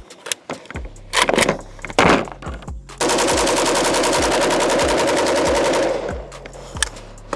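Pioneer Arms 5.56 AK-pattern rifle emptying a 30-round magazine on full auto in one continuous burst of about three seconds, starting about three seconds in. Before it, two sharp clacks of the rifle being handled.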